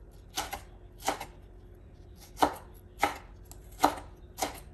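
Chef's knife slicing a red sweet pepper into thin strips on a wooden cutting board: about six separate, unevenly spaced knocks of the blade striking the board.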